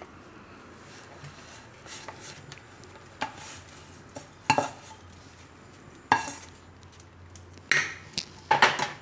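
A spatula scraping and knocking against a nonstick wok and a steel plate as a sticky date and sesame mixture is scraped out of the wok onto the plate. About six separate clatters, the loudest two near the end.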